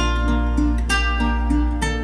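Gentle instrumental background music: single melody notes struck every few tenths of a second and dying away, over steady lower notes.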